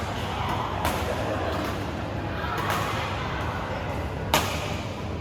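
Badminton racket strikes on a shuttlecock: sharp, short smacks, one a little under a second in, a fainter one mid-way and the loudest about four seconds in, over the murmur of voices in a large hall.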